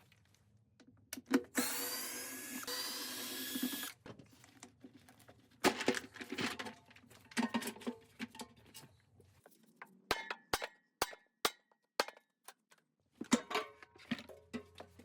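A power drill runs for about two and a half seconds, its whine rising in pitch. It is followed by a string of sharp clicks and knocks from tools and parts being handled.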